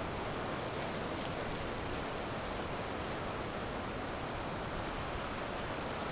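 Steady wash of sea surf and wind, with a few faint small ticks in the first half.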